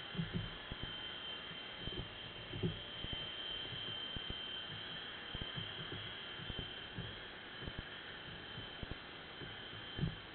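Underwater recording from a camera on a lobster trap on the seabed: a steady high-pitched whine with hiss, and under it irregular low knocks and thumps, a few of them louder.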